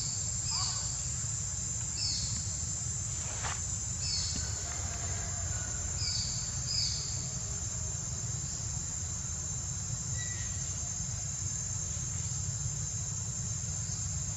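Steady high-pitched drone of insects, with a few short chirps scattered through the first half and a low rumble underneath.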